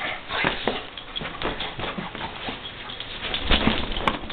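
Pit bull playing tug and thrashing a plush toy: a string of short dog noises and scuffles, the loudest about three and a half seconds in.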